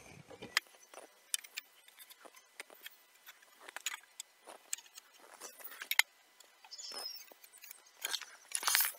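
Light, scattered clicks and scratches of a carpenter's square and ink marker being set against and drawn along the timber of a wooden floor frame while ink lines are marked, with a louder scrape near the end.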